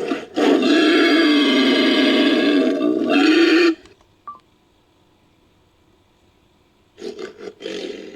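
Designed creature sound effect for a Daeodon–Hyaenodon hybrid: a loud, pitched roar lasting about three and a half seconds, followed near the end by a few short grunts.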